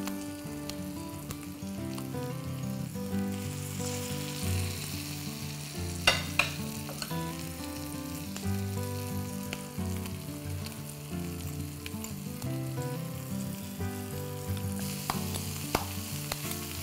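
Ground-pork meatballs frying in butter and a little oil in a skillet, a steady sizzle, with a spoon clicking twice about six seconds in. A soft tune of held notes runs underneath.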